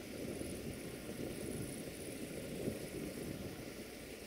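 Low, steady rumble of a distant 060-DA diesel-electric locomotive hauling a freight train toward the camera, with wind buffeting the microphone.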